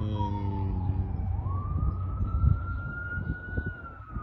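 A siren wailing, its single tone sliding slowly down, climbing back up about a second and a half in, then falling again, over a low steady rumble.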